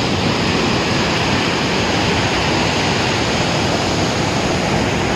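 Waterfall and river rapids: a loud, steady rush of falling and churning white water.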